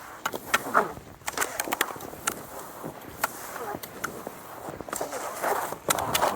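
Cross-country skis scraping and sliding over snow, with irregular sharp clicks and taps throughout.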